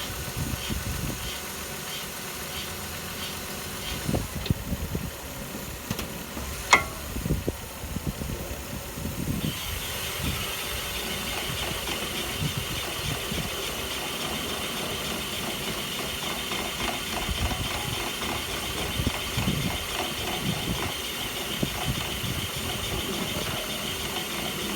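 1999 Toyota Avalon XLS running at idle, with irregular low thumps and one sharp knock about seven seconds in: the weird clunk the owner hears, more of it when in reverse, whose cause is unknown after new struts, end links, control arms, ball joints, tie rods and an axle. A steady high hiss comes in at about ten seconds.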